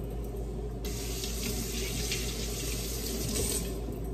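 Kitchen tap running into a sink: a steady rush of water that starts abruptly about a second in and stops near the end.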